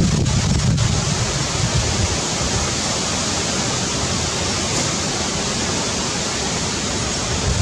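A steady, even rushing hiss of outdoor background noise with no distinct sounds in it; a low rumble fades out in the first second or so.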